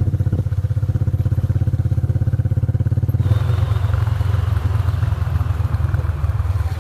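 Motorcycle engine running under way, a steady low pulsing exhaust note; about three seconds in a rush of hiss joins it.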